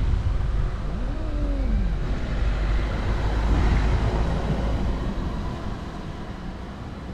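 Steady low outdoor rumble, with one drawn-out low cat meow that rises and then falls about a second in.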